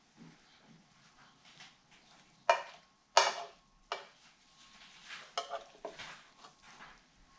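Cooking clatter: a utensil knocking and scraping against an electric skillet and dishes, loudest in two sharp knocks about two and a half and three seconds in, followed by several lighter clinks, over a faint sizzle of vegetables frying.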